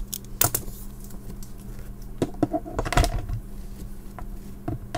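A few scattered light clicks and knocks as the Apple HomePod mini's power cable and plug are handled and plugged in, over a steady low hum.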